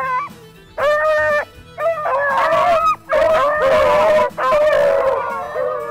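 Pack of beagles baying on a rabbit's scent: one long bay about a second in, then from about two seconds in several dogs giving tongue at once, their howls and yelps overlapping.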